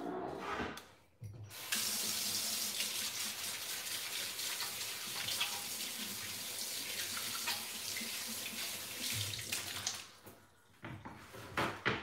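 Kitchen faucet running into the sink as something is rinsed clean, a steady rush of water that starts about two seconds in and is shut off after about eight seconds, followed by a few light knocks.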